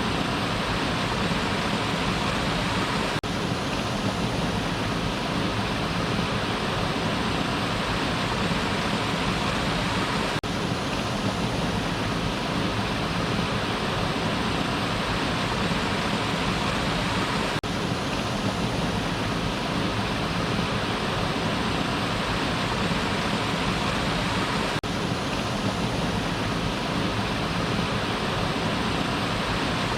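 Waterfall rushing in a steady, even roar of falling water, broken by a very brief dropout about every seven seconds.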